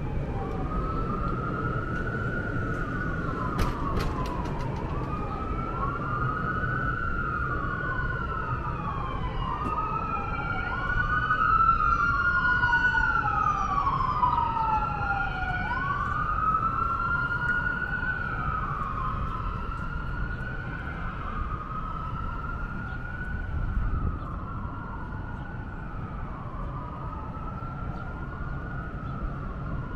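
Emergency vehicle siren wailing, its pitch sweeping up and sliding back down every few seconds, over a steady city street rumble. It grows louder towards the middle and then fades as it moves away.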